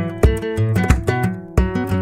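Acoustic guitar music: strummed chords, each struck sharply and left to ring.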